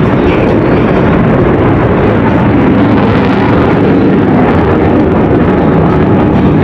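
Eurofighter Typhoon's two EJ200 jet engines in reheat (afterburner) during a low display pass: a loud, continuous roar that swells slightly about three seconds in.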